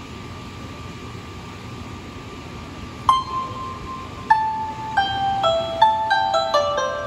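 Plucked string instrument starting a slow melody about three seconds in: single ringing notes at first, then coming faster, over a steady background hum.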